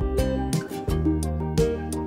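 Instrumental background music with plucked guitar notes over a steady bass line.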